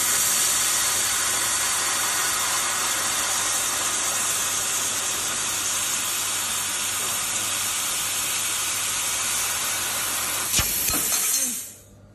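Handheld fiber laser cutting head cutting sheet metal, its assist gas blowing out of the nozzle in a steady loud hiss. There is a short knock near the end, and the hiss then cuts off as the cut stops.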